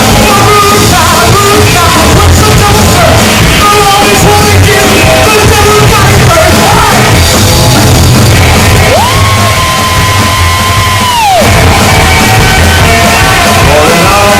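A rockabilly band playing live with singing and yells over a steady driving beat. About two thirds of the way in, a long high note is held for about two seconds and then slides down as it ends.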